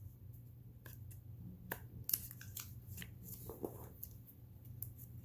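Light plastic clicks and taps from handling an Amazon Echo Auto and its magnetic mount, scattered irregularly with faint rustling in between.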